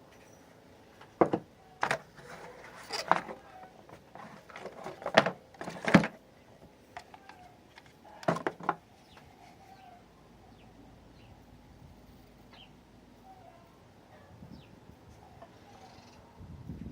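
Sharp clicks and knocks of a plastic cordless drill and its case being handled, about a dozen of them in the first nine seconds, then quiet handling.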